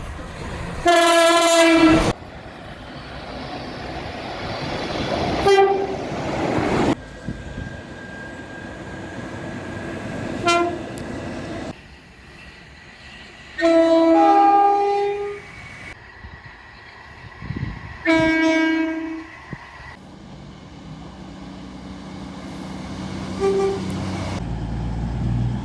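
Train horns sounding in a run of separate clips: about six blasts of differing length, the longest about two seconds, one a short toot and one stepping between two notes. A train's running rumble swells between them.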